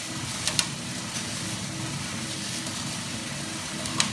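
Coffee roaster's cooling tray running: the electric motor hums steadily as the rotating stirring arm sweeps freshly roasted beans over the perforated floor, with the beans rustling. A few sharp clicks come about half a second in and again near the end.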